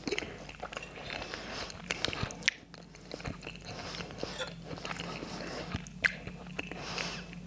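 Close-miked chewing and biting of a soft jacket potato, with wet mouth sounds and a few sharp clicks scattered through.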